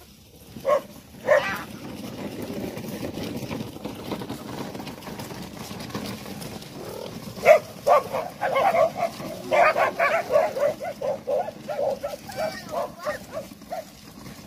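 A dog barking: two barks about a second in, then a quick run of rapid barks from about halfway through, three or four a second.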